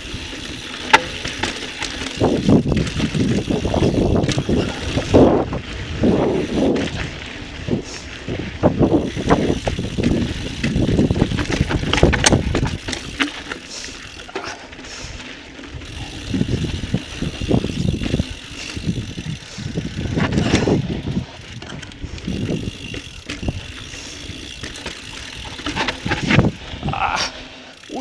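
Intense Recluse carbon mountain bike descending a dry, rocky dirt singletrack: tyres crunching and rumbling over the dirt, with sharp clicks and rattles from the bike over bumps, in uneven surges that rise and fall.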